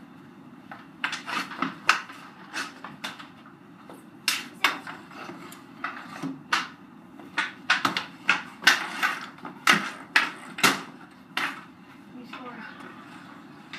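Hockey sticks knocking on a concrete floor during stick-handling play: a run of sharp, irregular clacks, most of them between about one and eleven seconds in.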